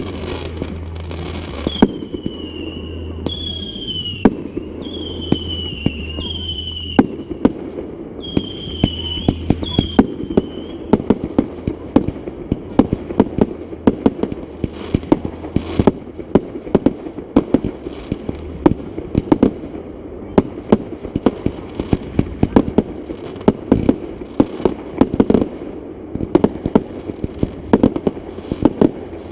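Fireworks display: a rapid, unbroken string of bangs and crackling pops, with several high whistles sounding in the first ten seconds or so.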